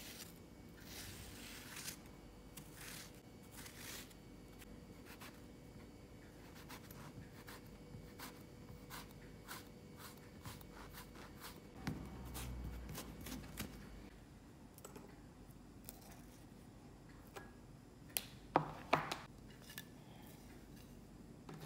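Kitchen knife scoring eggplant on a plastic cutting board: a long run of short cutting strokes and taps, with a few longer drawn strokes. A few louder knocks come near the end.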